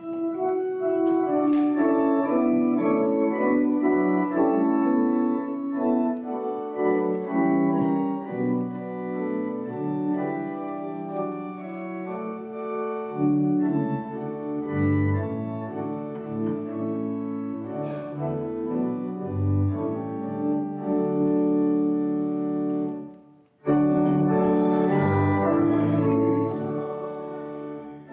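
Church pipe organ playing a hymn in held chords with deep pedal notes; it breaks off briefly about 23 seconds in, then starts again.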